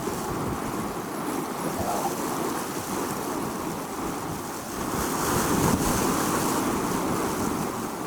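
Strong desert storm wind howling, a continuous rushing noise that swells louder about five seconds in.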